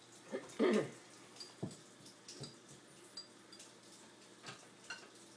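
A metal spoon clinking lightly against a glass jar of chocolate sauce and the plates, a scatter of small sharp clinks with a faint ring. A short voice sound comes about half a second in.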